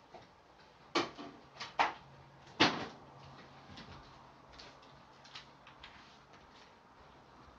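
Household knocks and clatter: four sharp knocks in the first three seconds, the loudest about a second in and near three seconds, then lighter clicks and taps, over a faint low steady hum.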